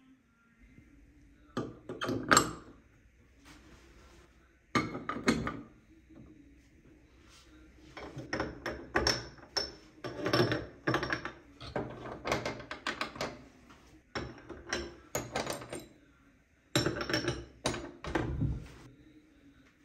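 Metal gas burner caps and burner parts being set back onto a glass-top gas hob, clinking and knocking against the burner heads and the glass. There are short groups of knocks about 2 and 5 seconds in, then a long run of repeated clinks and thunks through most of the rest.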